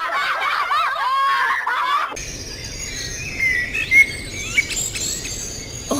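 Birds chirping over a steady outdoor background hiss, starting about two seconds in after a busy warbling, wavering sound.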